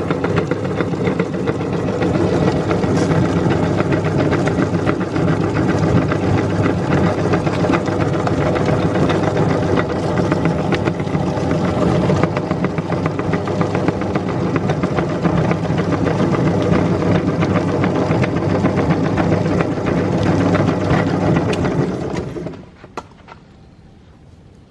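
Electric meat grinder running steadily while grinding whole eggs, with many small clicks and crackles over the motor hum; it is switched off and stops suddenly near the end.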